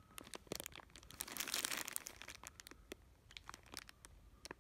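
Clear plastic bag crinkling as fingers press and handle the remote and cables sealed inside it: irregular quick crackles, thickest in the middle.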